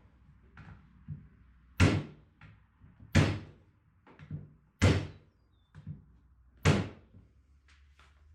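Hammer driving small brads into a wooden birdhouse: four hard blows about a second and a half to two seconds apart, with lighter taps in between.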